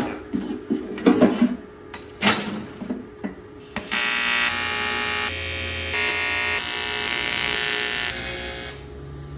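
A few sharp metal knocks as the aluminium sheet box is handled, then a TIG welding arc on aluminium starts about four seconds in and buzzes steadily for about five seconds before cutting off.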